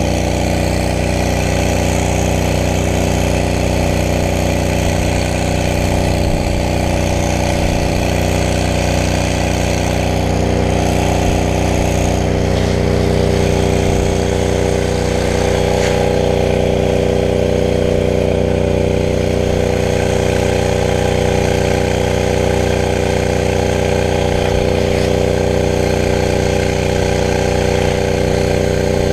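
A brush fire truck's engine running at a steady, unchanging speed, a constant drone with no revving.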